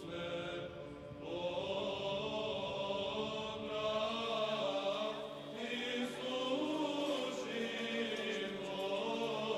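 Orthodox liturgical chant sung by a church choir: several voices holding long notes in harmony, moving slowly from chord to chord.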